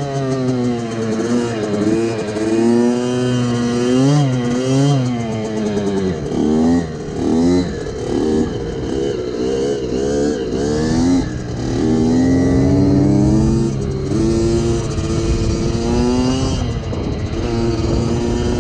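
Motorcycle engine revving up and dropping back several times in a row, then running at a steadier pitch in the second half.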